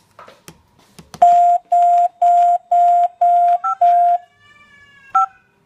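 Home security alarm keypad sounding six loud, even beeps at about two a second, with a short higher key beep near the end, after a few sharp clicks. The owner puts the beeping down to the carbon monoxide detector having been taken off its ceiling bracket.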